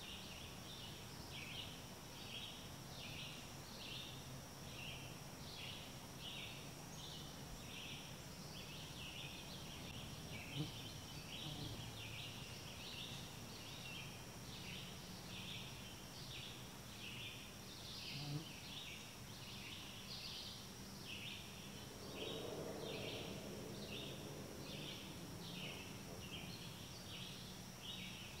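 Outdoor ambience of short buzzy animal calls, high-pitched and repeating about one and a half times a second, over a faint steady high whine. Two brief soft knocks come about a third and two thirds of the way through.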